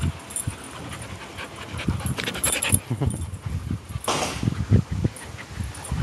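Dogs panting and moving about during play, with irregular short low puffs and thuds and a brief rush of noise about four seconds in.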